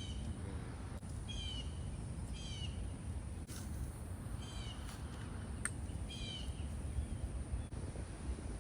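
A bird calling over and over, each call a short, quick, falling phrase, about every one to two seconds, over a steady low outdoor rumble with a few sharp clicks.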